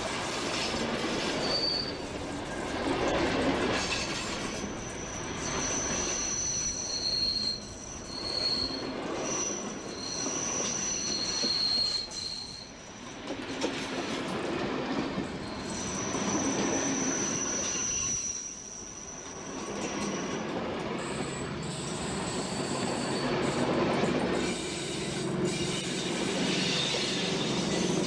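Narrow-gauge railway carriages rumbling along the track, their wheels giving high-pitched squeals that come and go as the train rounds the curves.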